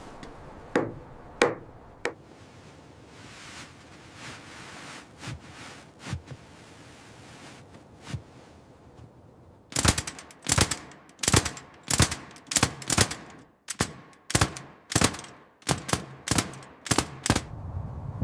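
Hand tools striking wood: a few separate knocks, softer repeated rasping strokes, then from about ten seconds in a fast run of around eighteen hard blows, two to three a second.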